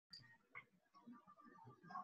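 Near silence: faint room tone with a couple of soft clicks.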